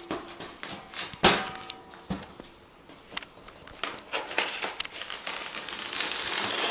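Unpacking noises as a boxed table's parts and packing are handled: scattered knocks and clicks, with a rustle of wrapping that swells near the end.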